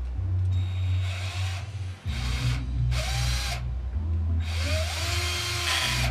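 A drill boring holes in the soldering gun's plastic case, running in four short spells of a second or so each. The last spell is the longest. Background music with a steady low beat plays under it.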